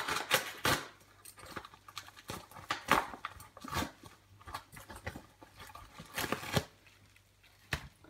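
A parcel being opened by hand: irregular tearing, scraping and rustling of packaging in a string of short, sharp noisy bursts.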